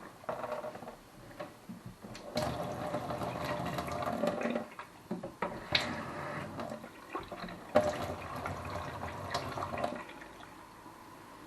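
Water running from a tap in a few spells, turned on and off, with a couple of sharp clicks or knocks, the loudest about two-thirds of the way through.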